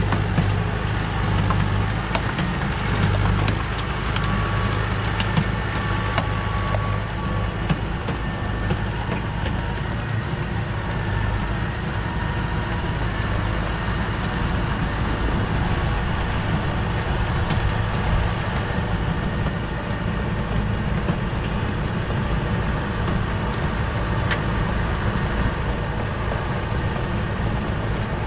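Tractor engine running steadily while working a muck spreader, with a constant low hum.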